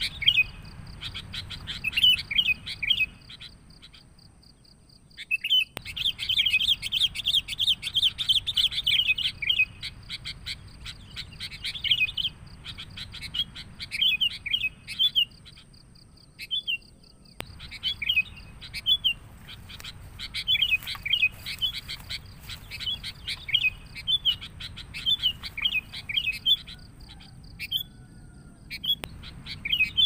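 Sooty-headed bulbuls (kutilang) giving noisy, rapid chattering calls: the busy call used as a lure to draw wild bulbuls in. Many short chirps follow one another, busiest in a long burst a few seconds in, with brief breaks about four seconds in and again past the middle. A thin steady high tone runs underneath.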